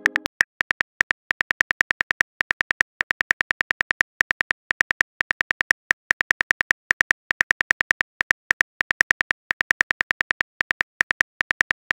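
Simulated phone-keyboard typing clicks: short, sharp clicks in quick succession, about six a second, one for each letter typed, with a brief pause about six seconds in.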